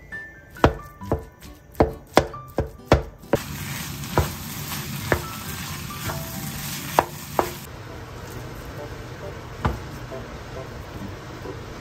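Wooden spatula knocking and chopping against a nonstick frying pan as brown rice is broken up and stirred into curry fried rice: a quick series of sharp knocks. About three seconds in, a sizzling hiss of frying joins for around four seconds, with more knocks, then the stirring goes on more quietly with an occasional knock.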